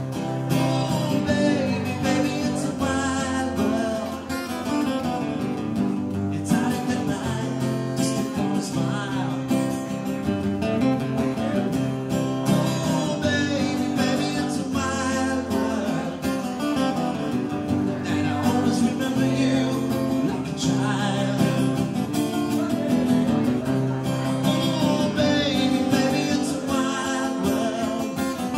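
Two acoustic guitars playing an instrumental passage, one strumming chords while the other picks notes along the neck.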